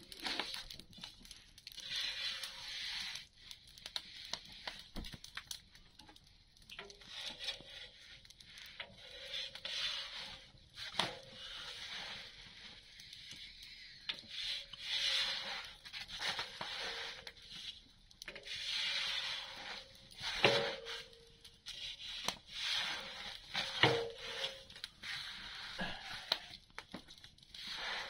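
Wood fire burning down to embers under an iron griddle, with an uneven hiss that swells and fades and a few sharp crackles and pops.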